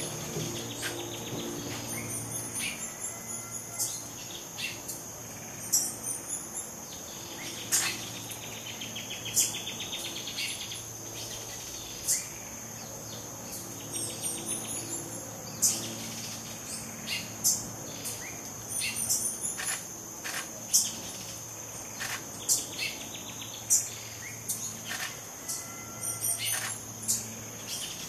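Tropical forest ambience: many short, sharp high bird chips and a few brief high twitters over a steady high insect drone, with a pulsed insect trill twice and a faint low hum beneath.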